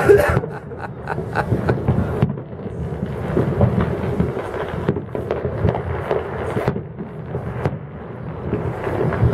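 Distant aerial fireworks shells bursting: a string of bangs and booms over a low rumble.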